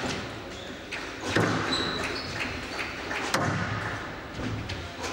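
Squash rally: sharp knocks of racket on ball and ball against the walls, the loudest about a second and a half in and again near the middle, with brief shoe squeaks on the court floor.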